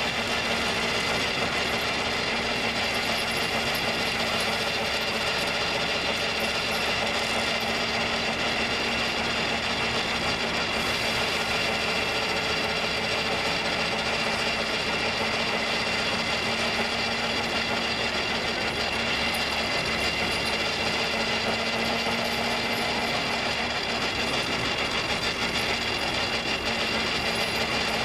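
Horse-powered sweep turning a tumbling rod and gear jack to drive a Case Agitator threshing machine: a steady, unchanging mechanical rattle with a constant hum.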